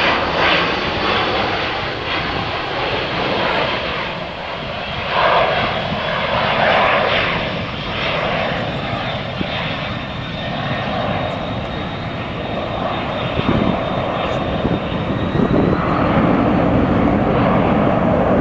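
Boeing C-17 Globemaster III's four turbofan engines during a slow, low flypast: a continuous jet rush with a thin, steady high whine on top. The deep low rumble grows stronger in the later part while the whine fades out.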